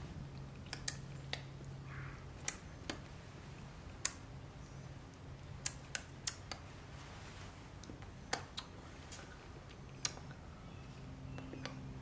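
Scattered sharp clicks and taps, about a dozen at irregular intervals, over a faint low steady hum that comes and goes.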